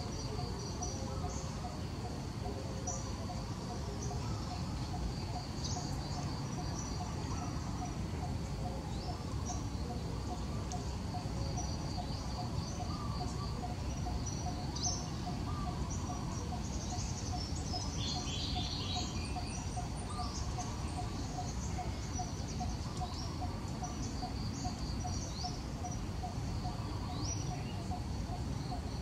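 Outdoor ambience: small birds chirping in short, scattered calls over a steady high insect trill and a constant low background hiss, with a quicker run of bird notes about eighteen seconds in.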